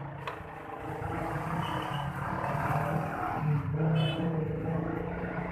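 Honda TMX 125 single-cylinder four-stroke motorcycle engine running, its hum wavering slightly in pitch.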